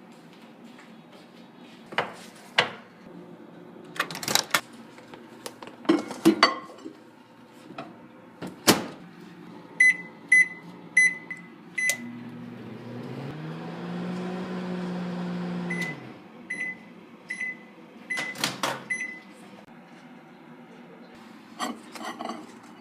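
Microwave oven in use. Its door clicks and bangs open and shut a few times, and five short beeps sound in a row. The oven then runs with a steady hum for about four seconds, rising in pitch as it starts up, and stops with a run of five beeps followed by more door clicks.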